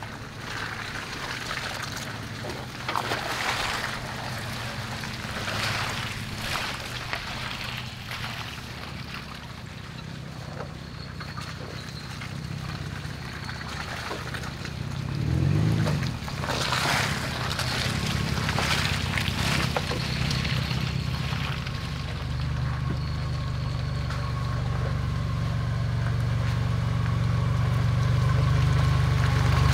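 Toyota FJ Cruisers and a 4Runner crawling one after another over a muddy trail: low engine running at crawling speed with tires crunching and squelching through the mud. A brief louder surge of engine comes about halfway through, and the engine sound grows steadily louder near the end as the last truck closes in.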